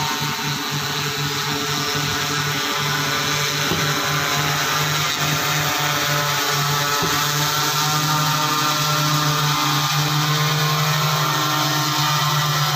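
Electric motors and propellers of a VTOL fixed-wing mapping drone, a steady buzzing whine of several tones overhead. It grows gradually louder as the drone comes in to land.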